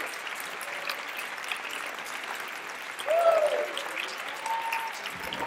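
Audience applauding steadily, with a short whoop from someone about three seconds in.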